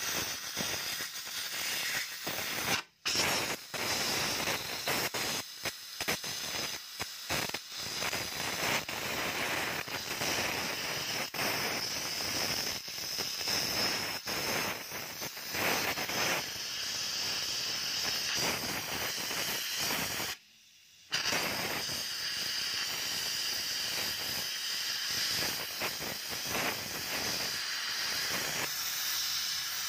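Gas cutting torch hissing steadily as it cuts through a rusty steel plate. The hiss drops out briefly twice, about three seconds in and again around twenty seconds in.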